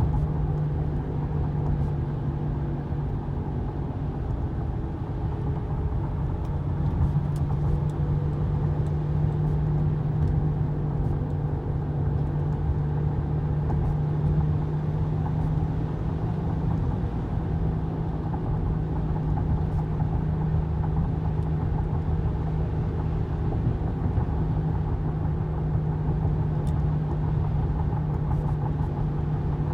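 2015 Honda Pilot driving with a steady low hum from the front end over road and tyre noise, which the owner suspects comes from the tyres, a wheel bearing or the differential.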